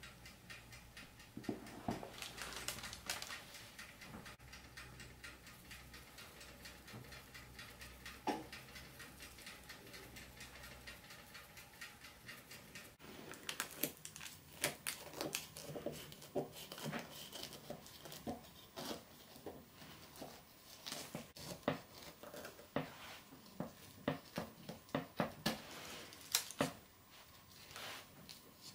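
Sparse clicks and rustles in the first half. From about halfway on, a knife cuts through a crisp baked crumble crust on baking parchment, making a run of quick crunches and crackles with some paper crinkling.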